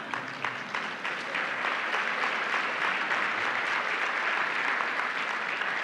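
Audience applauding: a dense patter of many hands clapping, held at a steady level for several seconds.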